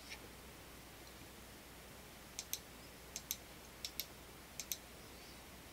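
Clicks from working a computer mouse and keyboard: four short paired clicks about two thirds of a second apart, over a faint steady background hiss.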